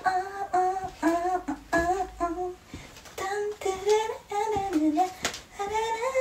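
A woman singing a wordless tune in short, evenly spaced notes, with a few footfalls on the floor between them.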